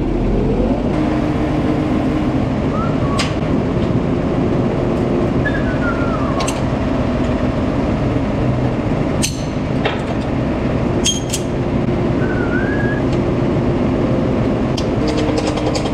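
Tractor engine running steadily while a subsoiler is hitched to the three-point linkage, with a few sharp metallic knocks from the hitching.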